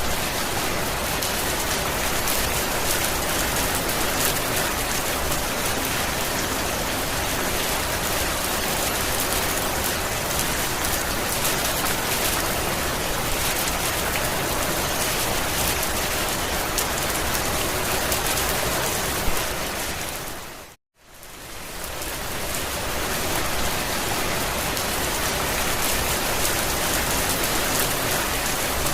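Steady rain pattering on a campervan roof, a dense even patter of drops. About three-quarters of the way through it fades out to a moment of silence and fades straight back in.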